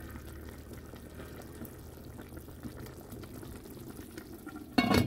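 Steady watery sound of liquid, with a brief loud knock near the end.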